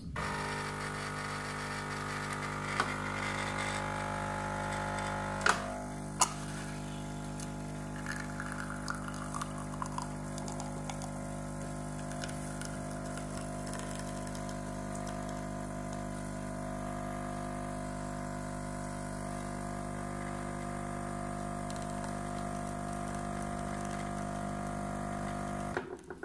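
Cecotec Power Matic-ccino 7000 bean-to-cup espresso machine brewing an espresso: its pump hums steadily as the coffee runs from the twin spout. A few sharp clicks come in the first six seconds.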